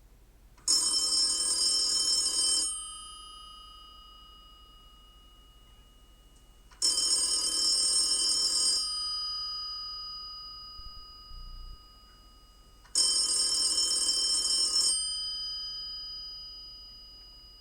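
Telephone ringing three times, each ring about two seconds long and about six seconds apart, its tones dying away after each ring.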